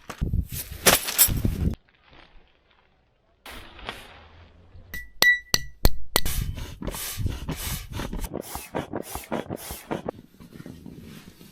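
A run of knocks, scrapes and clinks, with a short clear pause about two seconds in and a few sharp ringing metallic clinks near the middle.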